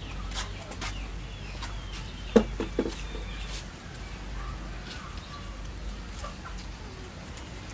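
A quick run of three or four short clucking calls about two and a half seconds in, over a low steady hum and scattered faint high chirps.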